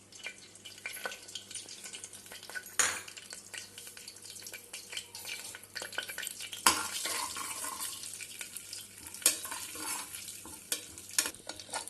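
Whole spices (fennel, cinnamon, cloves, cardamom) sizzling and crackling in hot oil in a pressure cooker as they are stirred in the pan, with a few sharp loud clicks.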